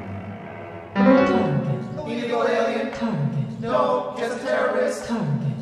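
Contemporary chamber music for violin, cello, clarinet and piano with electronics. After a quieter first second, the ensemble comes in loudly, and a low sliding figure falling in pitch repeats every second or two.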